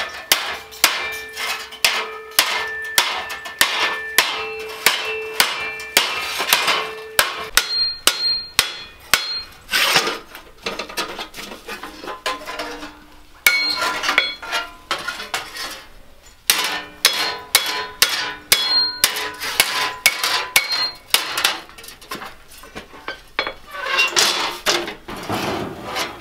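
Hand hammer striking a sheet-steel Char-Griller grill panel over an anvil, bending it into shape: a steady run of metal blows, about two a second, each with a brief ringing clang.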